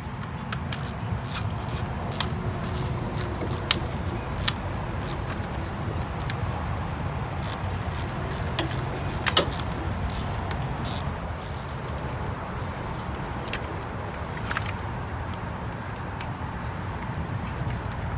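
Rapid small clicks and clinks of fuses and relays being pulled out of a car's fuse box one after another, thinning out after about ten seconds.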